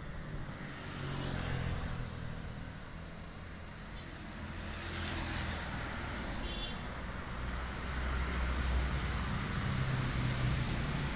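Road traffic: vehicles passing with a low engine rumble, the noise swelling and fading several times and growing louder in the second half.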